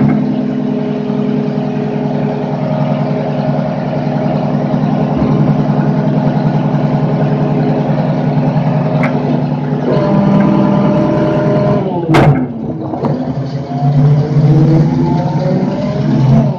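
Front-load garbage truck engine running steadily, then revving higher about ten seconds in. A sharp bang comes a couple of seconds later, followed by the engine revving up again with rising pitch near the end.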